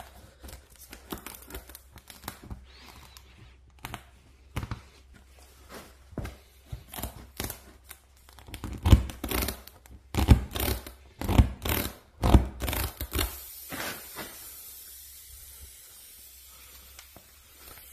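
Tire plug kit reamer worked back and forth in a puncture in a flat tire's tread: uneven rasping, scraping strokes of steel against rubber, louder and quicker later on, stopping about two-thirds of the way through. The rasp is cleaning out the hole and tearing up rubber, enlarging it to take the plug.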